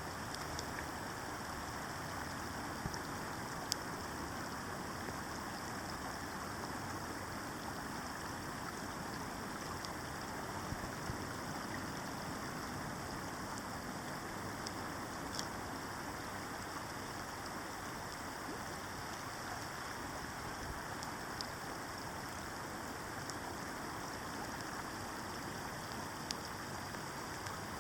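Steady rushing of a salmon stream, with a few faint ticks here and there.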